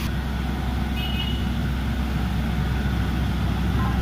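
Horizontal directional drilling rig's engine running steadily under load as it pushes the drill rod into the ground, a continuous low drone.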